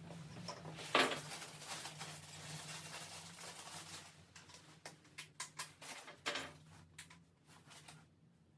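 Hands working on the heater's parts and fittings: scattered small clicks, taps and knocks, one sharper knock about a second in and a quicker run of clicks in the second half, over a steady low hum that fades about halfway through.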